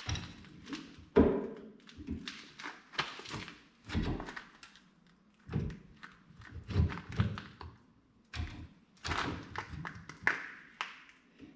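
A series of irregular knocks and thuds, about a dozen, some dull and heavy, some sharper, from tools and parts being handled during hands-on work on a truck.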